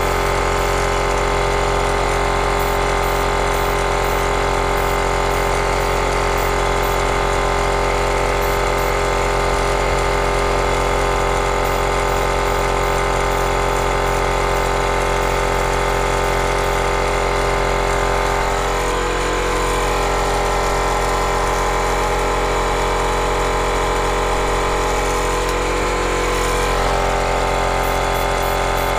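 Small airbrush compressor running with a steady hum that feeds the airbrush. Its tone shifts slightly between about 19 and 27 seconds in.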